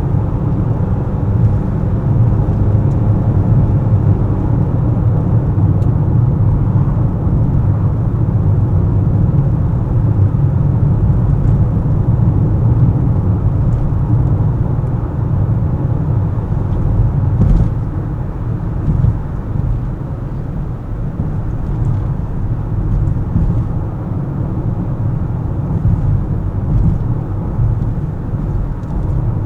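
Car driving in traffic: a steady low rumble of engine and tyre noise, easing a little past halfway through.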